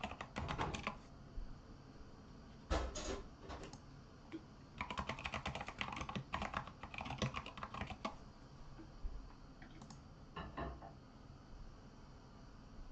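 Typing on a computer keyboard: several short bursts of rapid key clicks with pauses between them.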